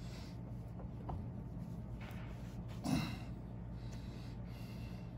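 A man breathing through his nose while working close to the microphone, with one short, heavier breath out about three seconds in, over a steady low hum; a faint click about a second in.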